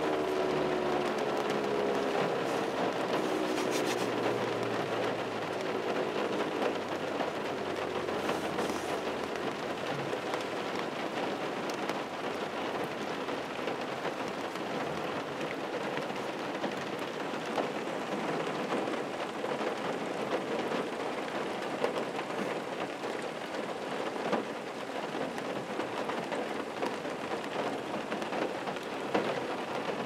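ASC T-128 outdoor warning siren winding down at the end of its alert cycle, its falling tone fading out within the first few seconds. Steady rain drumming on the car follows.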